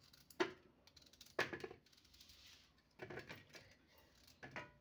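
Knife cutting a peeled raw radish by hand into large chunks that drop onto a steel plate: four faint, sharp clicks roughly a second apart.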